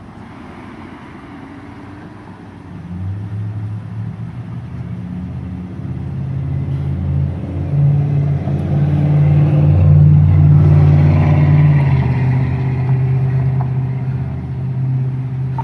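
Motor vehicle engine running close by, a low steady hum that gets louder over several seconds and then slowly eases off.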